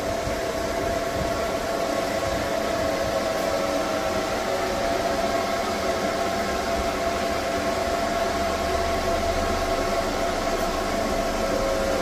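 EG4 inverters' cooling fans running loud and steady under a load of about 100%: an even rush of air with a steady whine in it.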